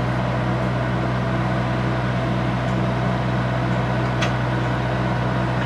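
An engine running steadily at constant speed with a deep, even hum. One sharp click is heard about four seconds in.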